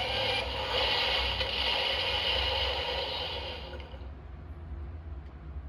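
Electronic sound effect from a Splashing Whale Progrise Key toy, a sustained sound that fades out about three and a half seconds in, followed by quieter handling noise from the toy.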